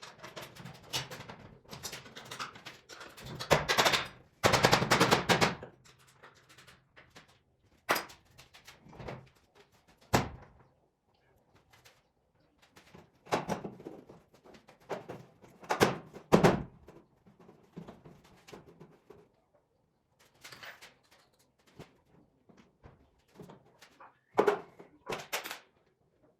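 Irregular knocks and clanks, with a dense rattling burst about four to six seconds in, typical of tools and hardware being handled while a garage door opener is put in.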